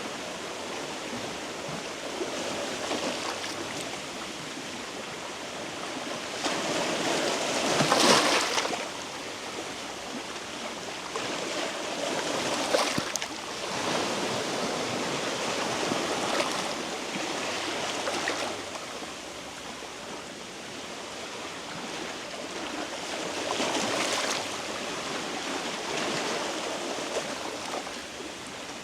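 Sea waves washing in over shore rocks, a steady wash that swells with each surge every few seconds; the loudest surge comes about eight seconds in.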